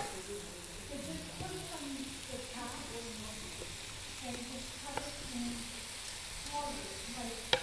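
Faint background chatter of several people over a steady hiss, with a small click about five seconds in and a sharper click near the end.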